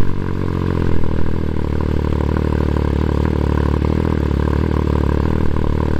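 MV Agusta Dragster 800 RR's three-cylinder engine idling steadily through a Competition Werkes slip-on exhaust after a cold start. The sound cuts off abruptly at the end.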